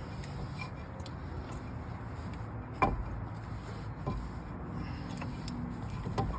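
Brake caliper piston being pressed back with a hand tool and the old brake pad: a sharp metal knock about three seconds in and a lighter one about a second later, over a steady low hum.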